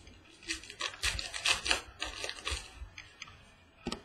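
A stack of football trading cards being slid and rubbed against one another as they are flipped through: a dense scraping rustle lasting about two and a half seconds, then a short sharp click near the end.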